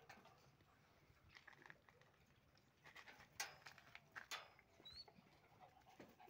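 Near silence broken by faint, scattered taps and clicks of puppies' claws on concrete paving slabs, with two sharper clicks about three and a half and four and a half seconds in.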